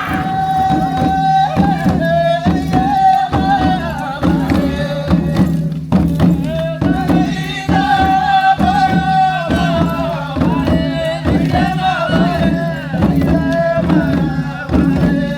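Traditional singing over a steady, regular drumbeat.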